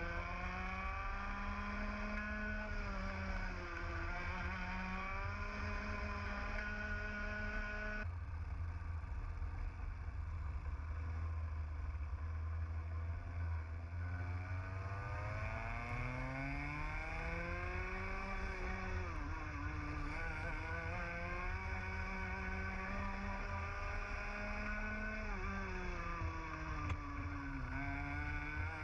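Onboard sound of a TAG kart's two-stroke engine racing, its revs climbing on the straights and dropping into the corners several times over. The sound changes abruptly about eight seconds in.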